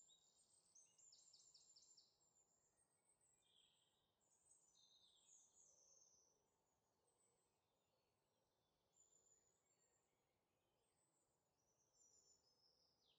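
Near silence, with very faint, short, high chirps scattered throughout.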